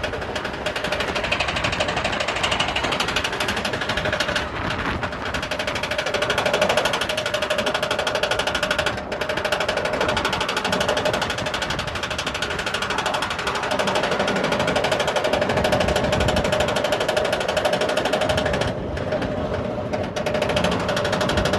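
Roller coaster train being hauled up a chain lift hill: a fast, steady clatter of the anti-rollback dogs over the ratchet track along with the rattle and hum of the lift chain.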